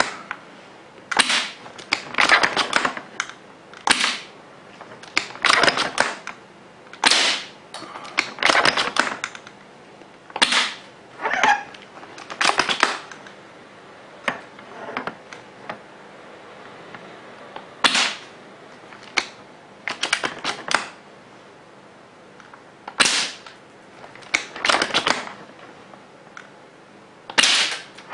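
Amoeba Striker bolt-action airsoft sniper rifle, converted to HPA with a Mancraft SDIK kit and regulated to about 3 bar, firing a string of shots through a chronograph. Each shot is a sharp pop among clusters of clicks from the bolt being worked, coming every one to three seconds.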